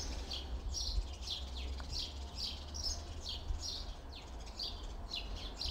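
A bird chirping repeatedly in the background, short high falling chirps about two to three times a second.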